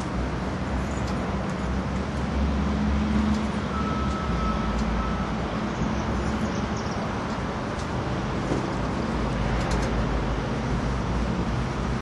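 Road traffic noise: a steady low rumble of passing vehicles, louder for a couple of seconds near the start, with a faint brief high tone about four seconds in. No siren tone is heard.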